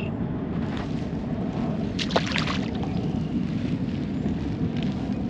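Wind buffeting the microphone, a steady low rumble, with a few sharp clicks about two seconds in.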